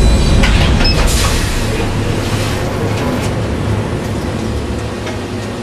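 Overhead garment sorting conveyor and plant machinery running: a steady low rumble with scattered light clicks, and a short high beep about a second in.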